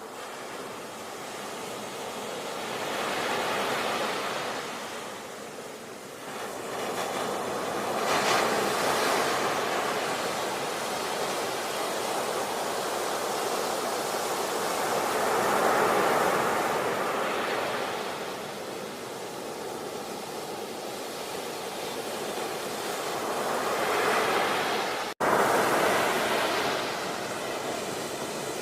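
Sea waves breaking and washing on the shore, the surf swelling and fading in slow surges about four times. Near the end the sound drops out for an instant and comes straight back.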